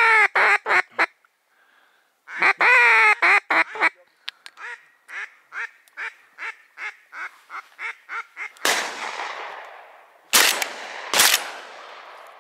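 Duck quacking: two loud runs of quacks, then a long series of quacks, about two a second, that fades away. Then three shotgun shots: a farther one about nine seconds in, and two close, loud ones less than a second apart near the end.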